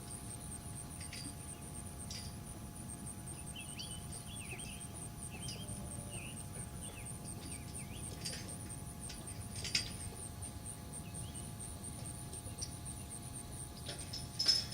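Insects trilling steadily in a high, evenly pulsing buzz, with scattered short bird chirps over it. One sharp click about two-thirds of the way through.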